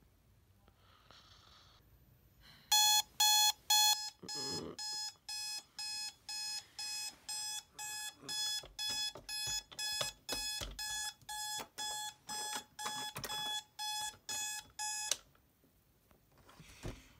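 Electronic alarm clock beeping, about two high beeps a second, the first three louder than the rest. It stops suddenly a couple of seconds before the end, as if switched off.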